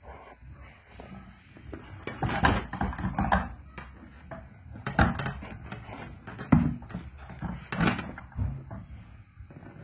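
Irregular knocks, scrapes and rustles of a fish tape and cable being pushed through a hole drilled through a house wall, with sharper knocks about two, five, six and a half and eight seconds in.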